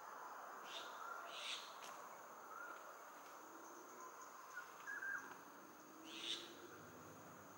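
Quiet outdoor ambience: faint short bird calls over a steady high insect drone, with a few brief rustles, about a second in and again near the end.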